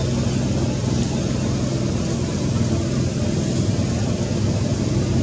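A motor running steadily with a low, unchanging drone.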